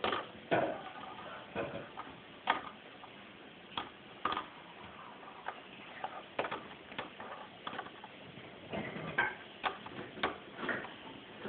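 Tech Deck fingerboard clicking and clacking on a wooden tabletop as it is flicked and landed in tricks. The clicks and knocks come at irregular intervals, the loudest about half a second and two and a half seconds in.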